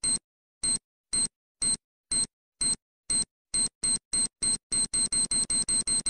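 Bomb-timer sound effect: short, high electronic beeps that come faster and faster, from about one every two-thirds of a second to about five a second near the end, the countdown running out.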